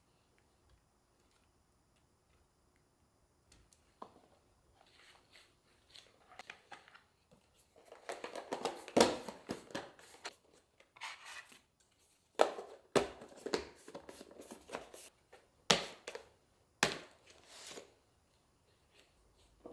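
Kitchen handling sounds: rustling and tearing, as of packaging, with several sharp clacks. They begin after a few quiet seconds.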